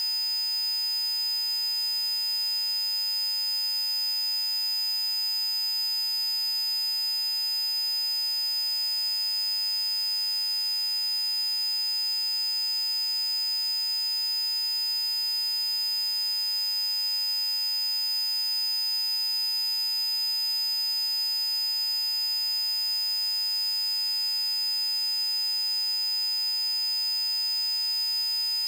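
Synthesized PC Zapper frequency tones, several pure tones held at once and unchanging: one strong high tone stands out over a steadier lower tone and many fainter high tones.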